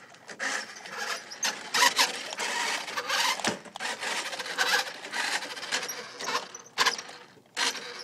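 Irregular mechanical rattling and clattering in quick, uneven bursts, with no steady motor tone.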